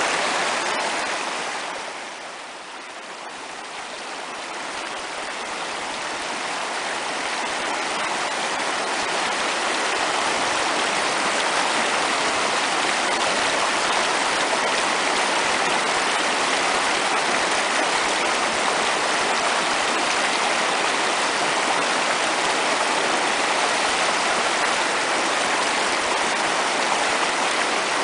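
Fast-flowing mountain creek rushing over rocks. It drops in level about two seconds in, then swells back over the next several seconds to a steady rush.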